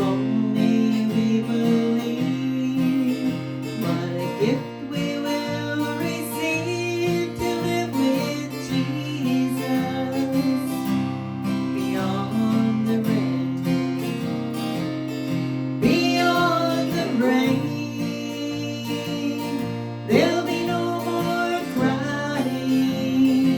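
Music: an acoustic guitar instrumental break in a slow gospel song, strummed chords with picked melody notes.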